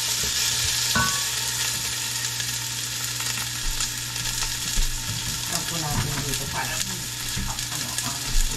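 Garlic and onion sizzling in hot cooking oil in a pan while being stirred, with the utensil knocking against the pan now and then, most sharply about a second in. A steady low hum runs underneath.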